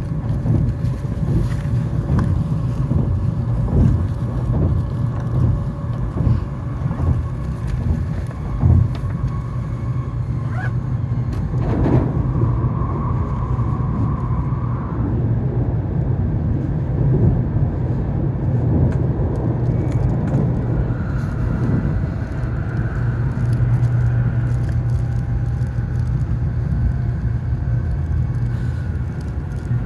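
Cabin running noise of an N700S Shinkansen train at speed: a steady low rumble with scattered knocks. A faint whining tone comes in briefly about halfway through, and a higher one from about two-thirds of the way in.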